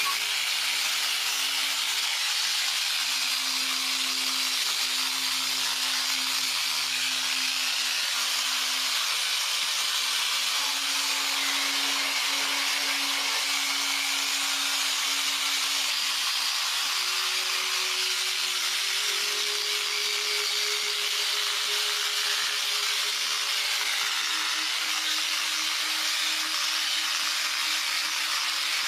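A power tool running steadily, with a continuous hiss and a low hum that drifts slightly in pitch.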